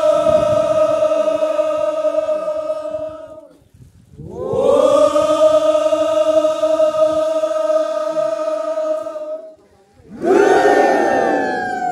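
A group of men chanting in unison: a long held note of about five seconds breaks off briefly, a second long held note follows, and near the end a third collective shout slides down in pitch.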